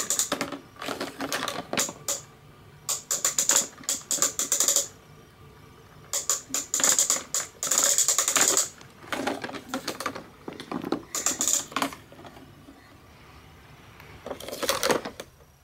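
Hand lever of a plastic Weebles toy treehouse being worked, giving bursts of rapid plastic clicking and rattling as the lift carries the Weebles figures up. There are several runs of clicking, each a second or two long, with short pauses between.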